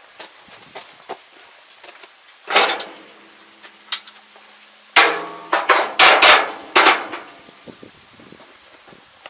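Wooden blocks knocking against the steel frame and deck of a flatbed trailer as they are moved about. One clank comes about two and a half seconds in, with a short metallic ring after it, and a quick string of knocks follows from about five to seven seconds in.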